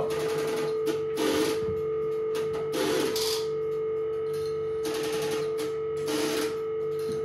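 Strowger group selectors in a UAX13 telephone exchange stepping and clattering in about five short bursts, over a steady tone from the exchange.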